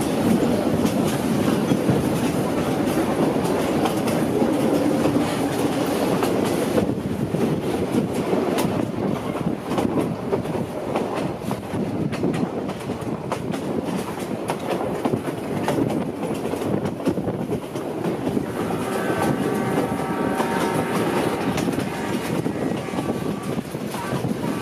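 Passenger train running at speed, heard at an open coach window: wheels clattering over the rails and the coach rattling. Near the end a steady pitched tone joins in.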